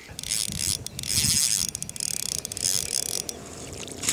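Spinning reel clicking mechanically as a hooked bass is drawn into a landing net, with some splashing from the fish.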